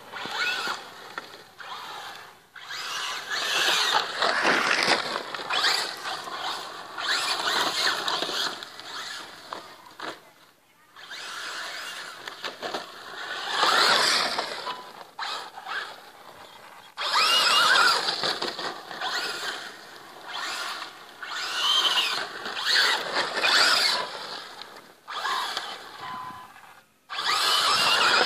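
Traxxas Slash RC short-course truck's electric motor and drivetrain whining in repeated bursts, the pitch rising and falling as it accelerates and slows, with tyres spinning and spraying loose sand. It pauses briefly a few times between runs.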